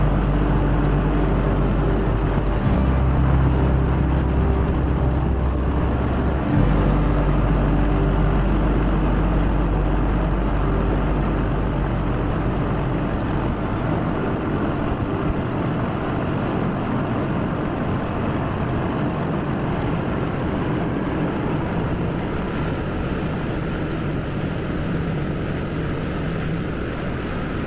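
A small boat's motor runs steadily under way, with a constant hiss of water and wind. A low steady hum in it fades out about halfway through.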